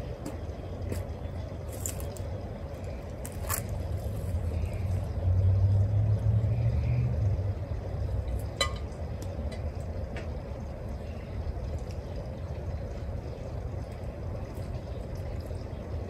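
Low rumble of a passing vehicle that swells a few seconds in and fades out again, over steady outdoor background noise. About halfway through there is one sharp clink as the ceramic bowl is set down.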